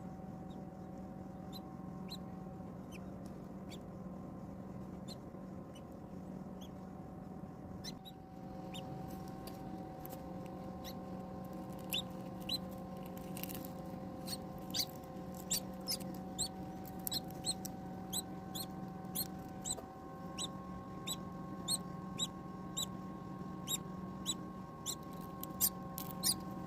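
A hatching parrot chick cheeping in short, high, thin peeps, sparse at first and coming several times a second from about halfway on. A steady electrical hum runs underneath.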